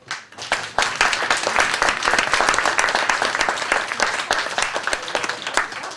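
Audience applauding, many hands clapping at once. The clapping builds within the first second, is loudest around the middle, and thins out near the end.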